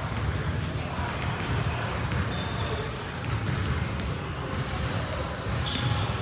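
A basketball dribbling and bouncing on a gym floor during a game, over steady gym noise, with a few short high squeaks mixed in.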